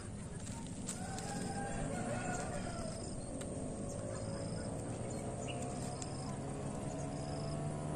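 Outdoor bird and fowl calls: a short high note repeating about every second and a half, with longer wavering calls lower down, over a steady low hum.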